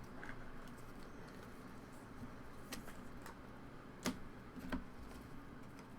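Faint clicks and light taps of trading cards being handled on a table, with a sharper click about four seconds in.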